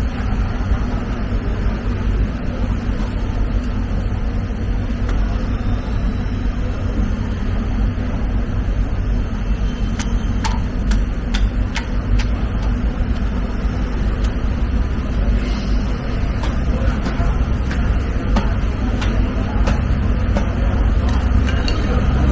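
Steady low rumble of machinery in a fish market hall, with a few short sharp clicks about ten to twelve seconds in.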